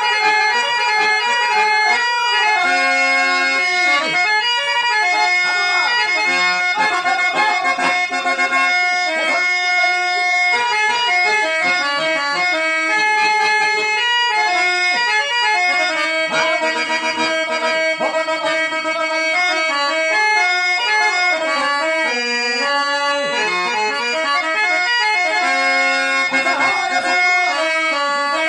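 An 85-year-old German-reed harmonium playing a raga melody, its reeds sounding steady held notes that move from pitch to pitch without a break.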